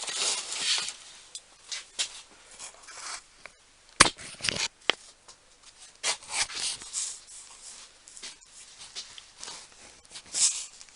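Containers and accessory sets being handled: irregular rustling and scraping, with a sharp click about four seconds in.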